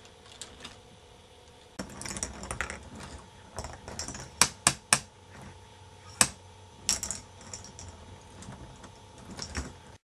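K'nex ball machine at work: plastic balls and parts clicking and clattering irregularly, with three sharp clicks in quick succession about halfway through and a few more after. The sound cuts off suddenly just before the end.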